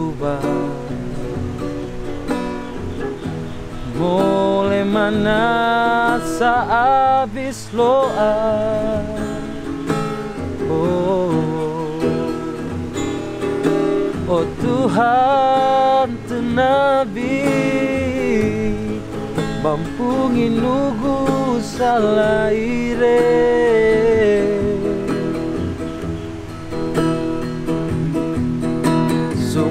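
A man singing a slow, sad song over an acoustic guitar; the guitar plays alone at first and the voice comes in about four seconds in.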